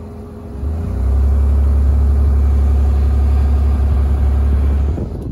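Deep, steady low rumble inside the cab of a 2001 Mazda Tribute 3.0 V6 SUV as it drives over rough, bumpy ground. The rumble swells about a second in and eases off near the end.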